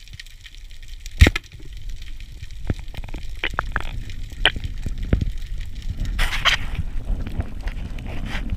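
A rubber-band speargun firing underwater: one sharp loud crack about a second in, followed by several lighter clicks and knocks, and a short rush of noise near the end.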